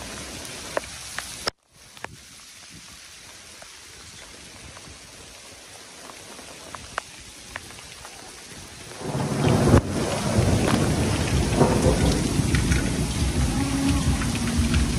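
Light rain with scattered drops ticking, then about nine seconds in a hail storm comes down hard. Dense pelting of hail and rain beats on wet paving, with a deep rumble underneath.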